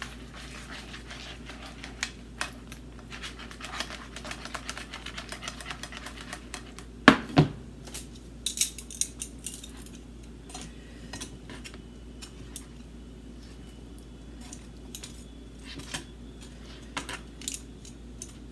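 Metal tongs clicking and scraping against a frying pan as sauce-coated, battered cauliflower pieces are turned, with the pan jostled on a glass-top stove at first. Two louder knocks come about seven seconds in.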